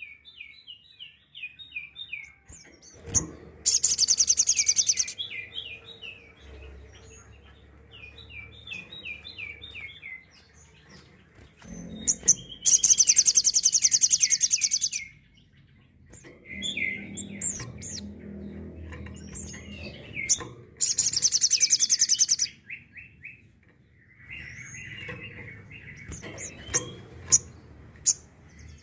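Sogok ontong (little spiderhunter) singing its 'tembakan' call: a loud, very rapid high trill lasting about a second and a half, given three times, with runs of quick down-slurred chirps in between.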